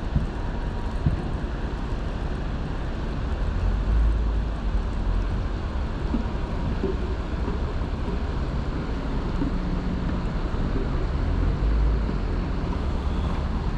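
Wind buffeting the microphone in uneven low gusts over a steady rushing background noise.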